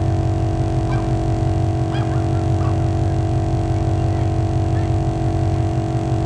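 All Top 150 psi onboard air compressor running steadily under load, filling a tyre through its hose: a constant low hum with steady tones above it.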